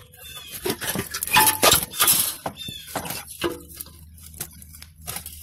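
Irregular clinks and knocks of hand tools and metal engine parts being handled under the hood, with short bird chirps in the background.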